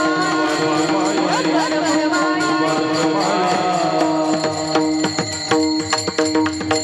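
Devotional kirtan music: a voice sings gliding, ornamented lines over a steady sustained drone in the first half, while cymbals and drum keep an even beat that comes to the fore about halfway through.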